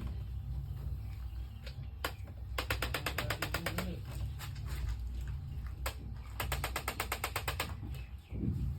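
Rapid mechanical clicking from a chiropractic adjusting instrument during a knee adjustment. It comes in two fast, even runs of about a dozen clicks a second, each just over a second long, with a single click before each run.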